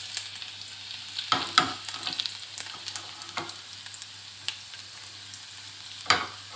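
Cumin seeds and chopped garlic sizzling in hot oil in a stainless steel kadhai, a steady frying hiss. A few sharp knocks come about a second and a half in and again near the end.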